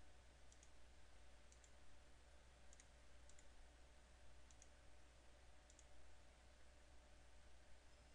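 Faint computer mouse clicks, about six quick press-and-release pairs spread out, over a near-silent low hum.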